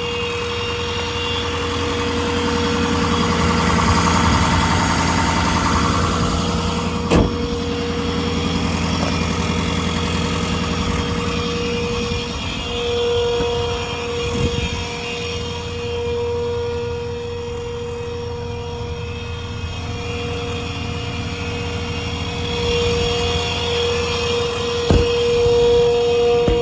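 Ford 6.7 Power Stroke V8 turbo diesel idling steadily, with a steady whine over the engine note. There is a sharp click about 7 seconds in and another near the end.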